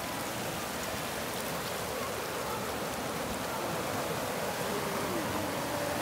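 Shallow river water rushing over and between flat rock shelves: a steady, even rush.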